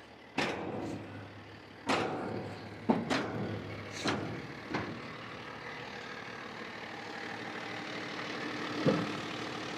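Delivery truck's engine idling steadily, with several sharp knocks and clunks spaced out over the first half and one more near the end.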